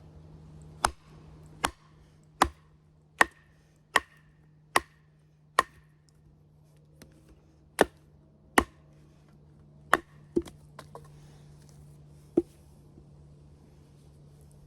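A baton striking the spine of a Work Tuff Gear Night Hunter knife to drive it through wood, about a dozen sharp knocks. The first seven come evenly, a little under a second apart, then a few more come irregularly before a pause near the end.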